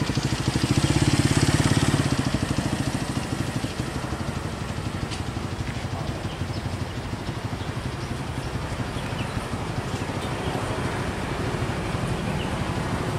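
Motorcycle engine running steadily with a fast, even pulse, a little louder in the first two seconds.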